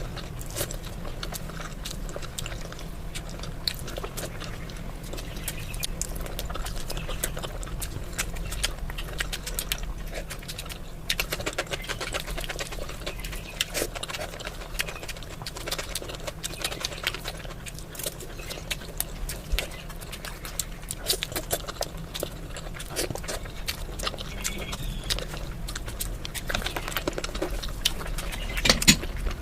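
Close-miked eating: chewing and lip-smacking with many small wet mouth clicks, over a low steady hum.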